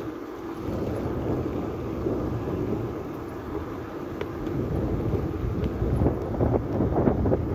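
Wind buffeting the microphone while riding a bicycle: a rumbling rush with no tone, gusting louder in the last second or two.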